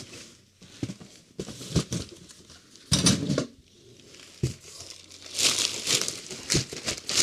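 Packing material crinkling and rustling as parts are unpacked from a box, in irregular bursts, loudest about three seconds in and again between about five and six seconds in.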